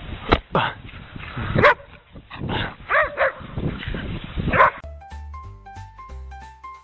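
A dog barking and yipping in a run of short barks. About five seconds in, light instrumental music with piano-like notes takes over.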